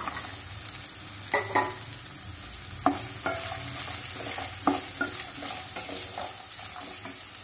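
Diced carrots and green beans sizzling in hot oil in a stainless steel kadai with a steady hiss, stirred with a wooden spatula that knocks against the pan about six times.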